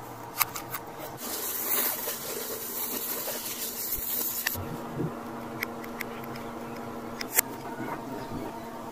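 Handling noises: a few sharp clicks, the loudest near the end, and about three seconds of rubbing and scraping as the plastic reel of LED strip is handled, over a faint steady hum.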